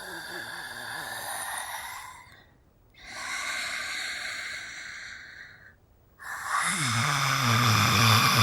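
Female zombie vocal sound effects: two breathy, hissing exhales of about two seconds each with short silences between, then a louder, growling moan starting about six seconds in.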